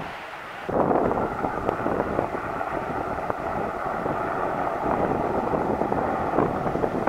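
Two Westland Sea King Mk41 helicopters flying past together: steady rotor and turbine noise, jumping louder less than a second in, with wind buffeting the microphone.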